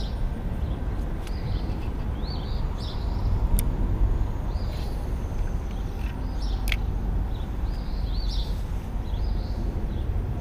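Steady low rumble of highway traffic, with a bird repeating short chirps over it every second or two and a couple of sharp clicks.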